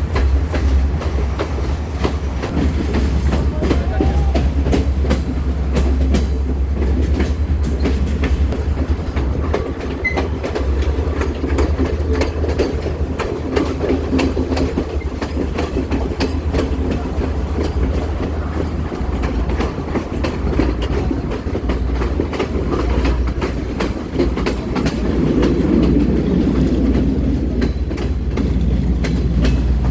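Train running on rails: a steady low rumble with the clickety-clack of wheels over rail joints and many small rattling clicks.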